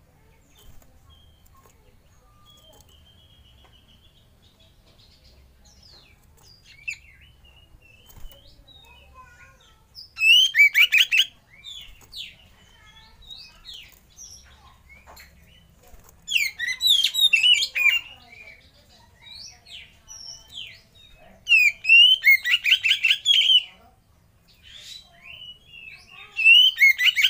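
Oriental magpie-robin singing: four loud bursts of rapid, rattling notes a few seconds apart, with softer whistles and chirps between.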